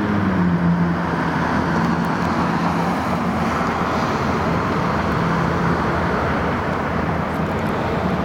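Motor vehicle engine and traffic noise: a steady low engine hum over a continuous road rush.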